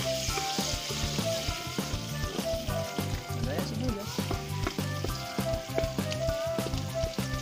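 Chopped garlic sizzling in hot oil in an aluminium wok, with a metal spatula clicking and scraping against the pan as it is stirred.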